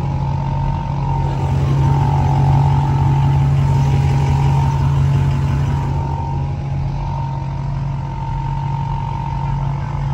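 Vehicle engine running steadily at a constant pitch, a loud, even hum.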